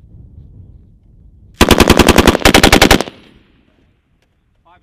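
Belt-fed machine gun firing a short full-auto burst, a rapid even string of shots lasting about a second and a half, with a brief break partway through and a fading echo after it.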